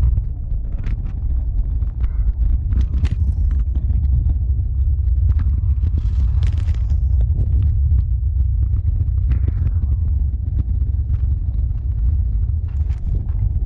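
Kick scooter rolling over street pavement: a steady low rumble from its wheels, with frequent short clicks and rattles as it goes over cracks and bumps.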